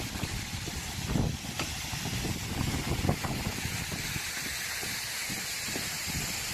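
Wind rumbling on the microphone over a steady hiss of outdoor noise, with a couple of soft knocks.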